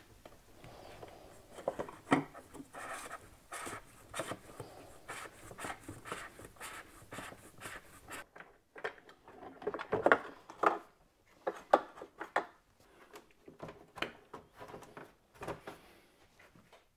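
Hands working on an oil filter change: scattered light clicks, taps and rubbing of parts, with a few sharper clicks a little past the middle.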